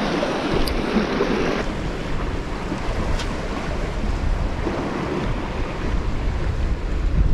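Wind buffeting the microphone over sea waves washing against rocks. About a second and a half in the sound turns duller, with more low wind rumble.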